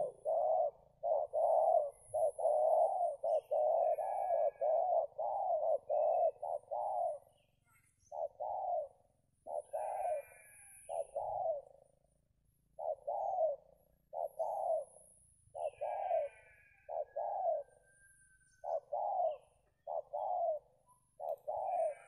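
Spotted dove (tekukur) cooing: a quick run of about ten low coo notes over the first seven seconds, then short groups of two or three coos with pauses between them. Small birds chirp faintly in between.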